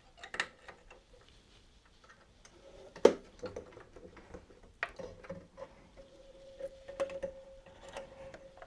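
Small clicks and taps of hands threading the upper thread through a sewing machine's guides, with one sharper click about three seconds in and a faint steady hum from a few seconds in.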